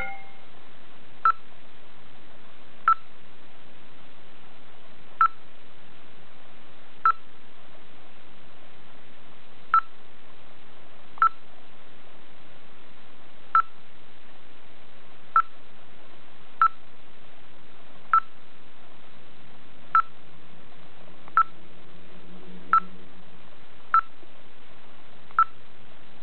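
A touch-screen GPS navigator's key beep sounding with each stylus tap on its menus: about fifteen short, identical beeps at irregular intervals, over a steady hiss.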